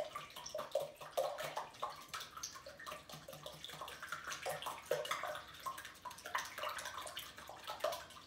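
Wire whisk beating eggs in a glass mixing bowl: quick, steady strokes, with rapid clicks of the wires against the glass and a wet sloshing of the eggs.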